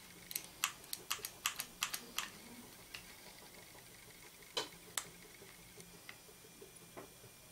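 Faint, light clicks from a hand-held hot glue gun being worked along fabric on card: a quick run of about eight in the first two seconds, then a couple more a little past halfway and a few fainter ones.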